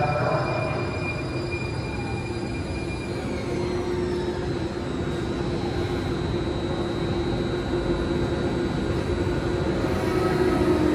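Muni Metro Siemens S200 light rail vehicle standing at the platform: a steady electric hum and rumble from its onboard equipment, with a high whine that glides down in pitch about three seconds in and then settles into a steady high whine.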